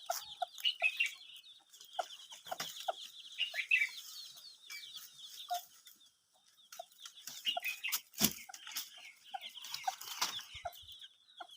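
Hen clucking in short low calls while her chicks cheep rapidly in high, thin peeps. A sharp knock sounds about eight seconds in.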